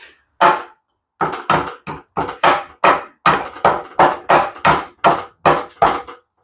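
Steady hammering: about fourteen sharp blows, two to three a second, each with a short ringing tone.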